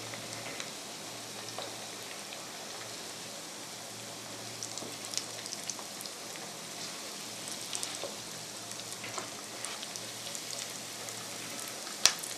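Cornflake-coated chicken pieces frying in hot coconut oil in a pan: a steady sizzling hiss with scattered crackles and pops. One sharp tap near the end.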